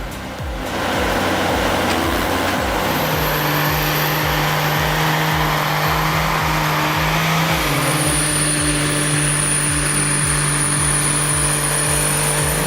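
Heavy machinery engine running steadily with a rapid low pulsing, growing louder about a second in. A thin high whine joins it a few seconds in and stops near the end.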